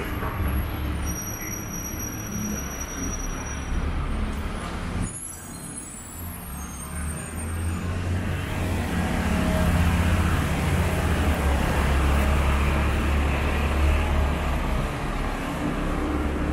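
Busy street traffic dominated by the low rumble of truck and bus engines, growing louder from about halfway through as a box truck's engine is close by.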